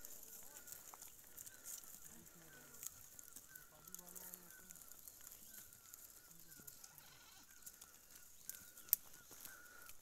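Faint bleats from grazing goats, under a short high chirp that repeats about twice a second. A sharp click comes near the end.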